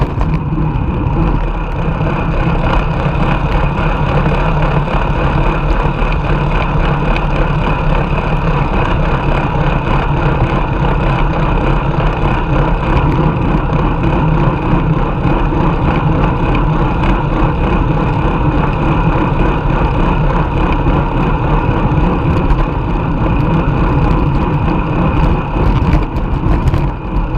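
Steady wind rush and tyre road noise on a bike-mounted camera's microphone while riding a road bicycle at speed.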